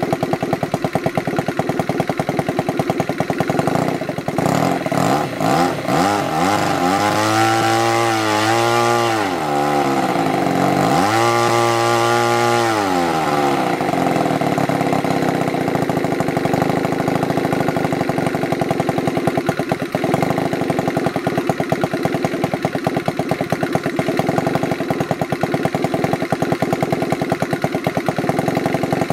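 Kavan FK 50 Mk II flat-twin model engine, converted to petrol with CDI spark ignition, on its first run after a full rebuild. It idles with a rapid, even beat, is revved up twice in quick succession about five to thirteen seconds in, and settles back to a steady idle.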